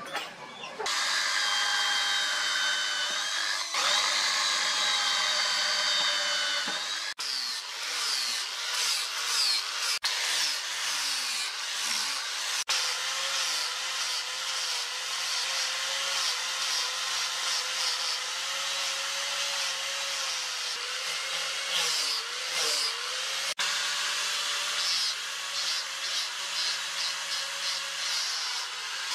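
Electric angle grinder with a sanding disc running and sanding a wooden knife handle: a steady motor whine with gritty abrasive noise, its pitch dipping and recovering as the disc is pressed into the wood. The sound breaks off abruptly and resumes a few times.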